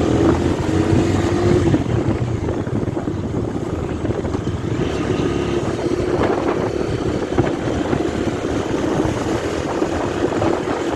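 Bajaj Dominar 250 motorcycle's single-cylinder engine running steadily while the bike is ridden, with road noise.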